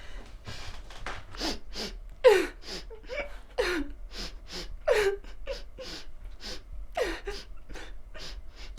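A person sobbing: gasping, breathy inhales between short whimpers that fall in pitch.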